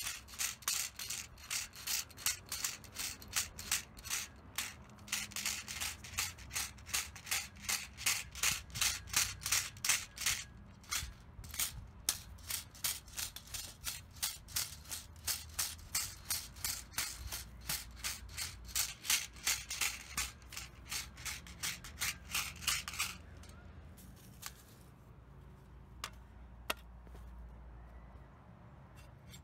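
Metal tamping rod repeatedly jabbed into sandy soil around a newly set wooden fence post, packing the backfill so the post stays put: a rhythmic gritty crunch, about two to three strokes a second, that stops about 23 seconds in, followed by two faint clicks.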